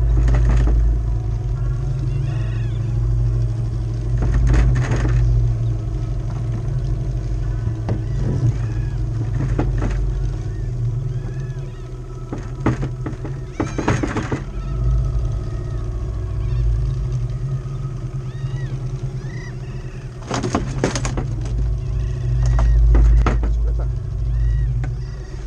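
Small outboard motor running steadily at trolling speed. A few short knocks come now and then.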